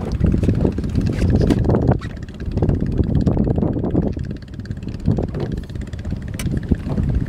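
Wind buffeting the microphone in a loud, uneven low rumble, over waves washing around a small boat, with a few brief sharp knocks.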